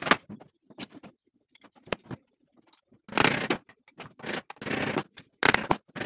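Short scraping strokes of a hand tool on wood. One comes right at the start, then a run of about five strokes, each about half a second long, from halfway through.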